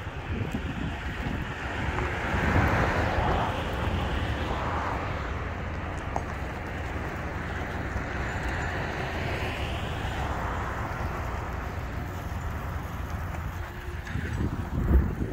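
A diesel truck engine running, with wind on the microphone; the sound swells about two seconds in and again around ten seconds.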